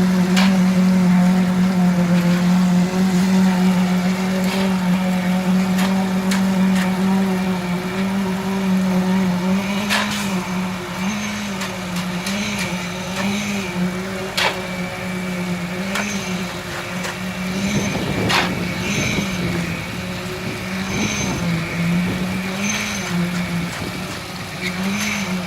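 An engine running at a steady speed, its pitch wavering slightly about once a second, with a few sharp clicks.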